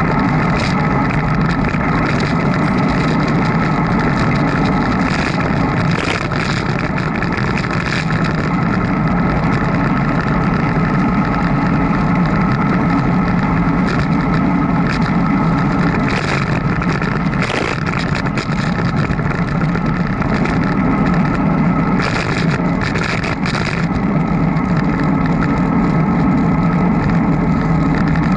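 Continuous riding noise picked up by a camera on a moving bicycle: a steady low drone with scattered light clicks and rattles.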